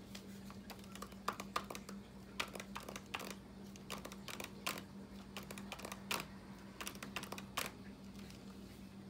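Fingernails tapping on a hardcover book's cover: quick, irregular taps, some in short runs, that stop near the end. A faint steady hum lies underneath.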